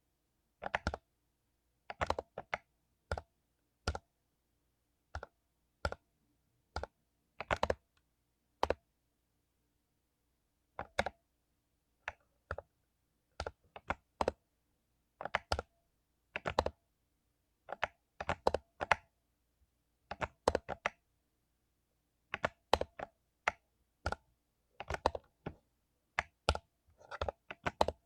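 Mechanical keyboard with lubed Cherry MX Silver linear switches being typed on: irregular runs of keystrokes, with pauses of a second or two between them.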